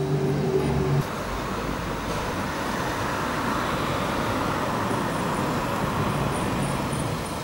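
Road traffic on a city street: a steady rush of passing cars, with a low steady hum in the first second.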